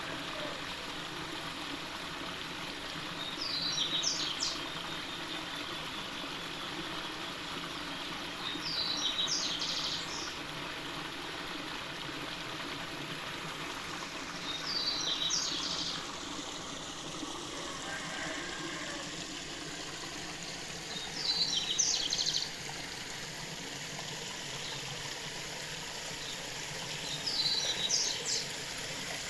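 A songbird repeating one short, high phrase about every six seconds, five times in all, over a steady background hiss.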